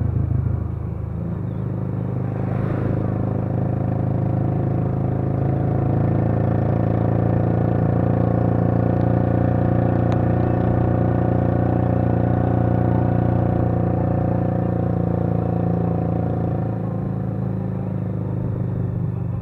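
Engine of the moving vehicle carrying the camera, running steadily at cruising speed with road and wind noise; the engine note shifts slightly a little over a second in and again near the end.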